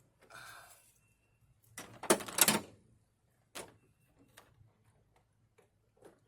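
Clatter and sharp knocks of hand tools and a battery cable being worked loose while disconnecting a truck battery. The loudest clatter comes about two seconds in, followed by a few single knocks.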